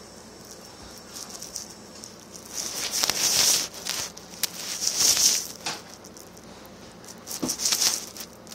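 Rustling and clicking handling noise in three bursts about two seconds apart, with a few sharp clicks between them.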